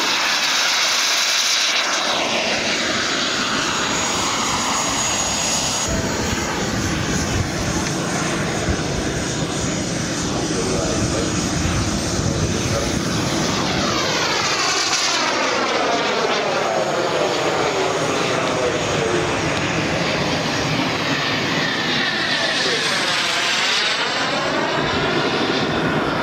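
Small gas-turbine engines of radio-control scale model jets whining and rushing as they fly past, the sound sweeping down and back up with each pass.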